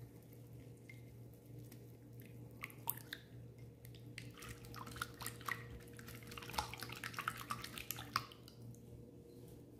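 Silicone whisk beating a runny milk, oil and egg batter in a glass bowl: wet sloshing and splashing with quick clicks, which start about three seconds in, grow busier, and stop just after eight seconds. A faint steady hum runs underneath.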